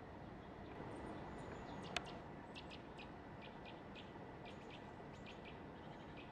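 A small bird giving a run of short, high chirps, a few a second, over a faint steady hiss of open-air background. A single sharp click about two seconds in is the loudest sound.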